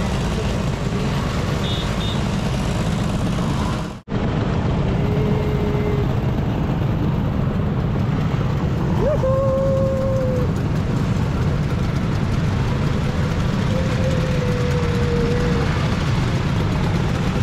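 Vespa scooters on the road, heard from a moving scooter: engine running with a steady wind rush on the microphone. The sound cuts out for an instant about four seconds in. Three short steady tones, like a horn, come and go later on.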